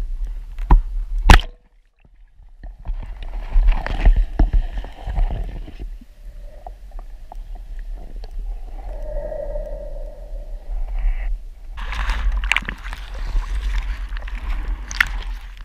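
Underwater sound picked up by an action camera in its waterproof housing on a speargun: muffled water movement with sharp knocks against the housing, the loudest just over a second in, and a brief hum in the middle. In the last few seconds the camera breaks the surface and water splashes and sloshes around it.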